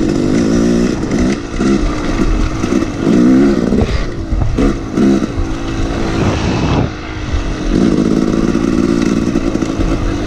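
Dirt bike engine being ridden hard over a trail, its pitch rising and falling as the throttle is worked and gears change. About two-thirds through the throttle closes briefly and the engine note drops, then it pulls again at a steady, higher pitch.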